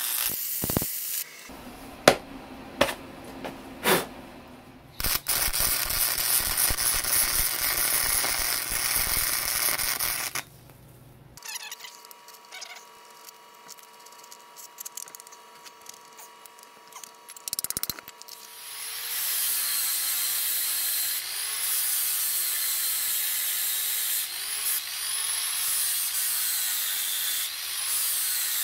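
MIG welding crackle on a steel band, in a short run, then a few sharp clicks, then a longer run of about five seconds. After a quieter stretch with a steady hum, an angle grinder grinds the steel weld for the last ten seconds, its pitch sagging and recovering again and again as it is pressed in.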